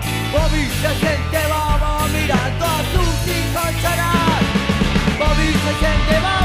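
Punk-rock band music with drums, bass and a bending lead line, likely guitar, over the top.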